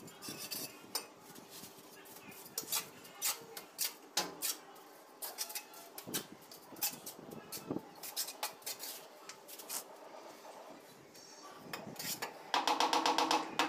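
Steel mason's trowel scraping and clinking as wet cement mortar is worked on a spare tile and spread, with scattered light taps as ceramic wall tiles are set. About a second before the end a louder, steady rhythmic sound with held tones comes in.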